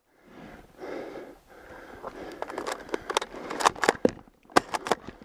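Close breathing and sniffing from the player, then an irregular run of sharp snaps and crunches from his movement through the brush.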